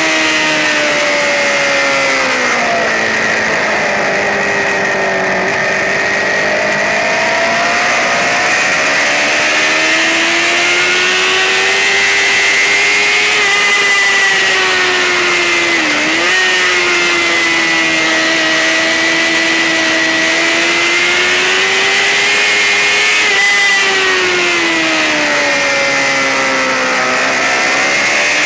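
Racing sportbike engine heard from on board, running hard at high revs, its pitch sinking and climbing slowly over several seconds with a brief sharp dip about sixteen seconds in, over a steady hiss of wind.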